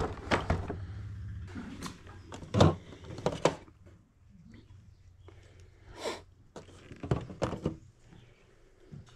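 Irregular knocks and clatter of boxed toy vehicles, cardboard and clear-plastic packaging, being picked up, shifted and set down on a table, the loudest knock about two and a half seconds in. A low steady hum fades out about a second and a half in.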